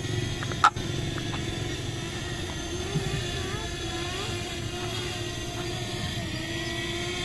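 Fimi X8 Mini quadcopter's propellers whirring steadily as it comes in to land, the pitch wavering slightly. There is a sharp click just under a second in.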